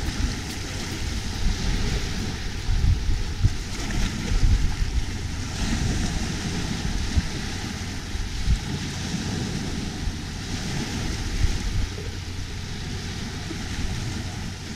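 Small waves washing up on a sandy shore, their hiss swelling a few times as the wash comes in, under a low rumble of wind buffeting the microphone.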